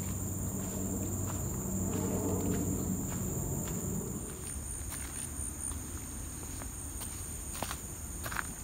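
Footsteps crunching along a dirt and stone forest trail, set against a steady high-pitched insect drone. A low hum sits underneath for the first few seconds and fades out about four seconds in.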